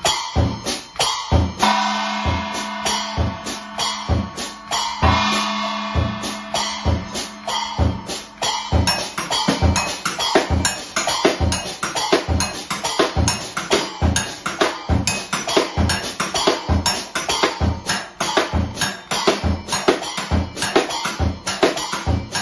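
Acoustic drum kit (Yamaha drums, Zildjian cymbals) played with sticks: a steady bass-drum beat about twice a second throughout. For the first several seconds cymbals ring over it with a sustained ringing tone, which stops about nine seconds in. Busier, faster snare and tom strokes follow.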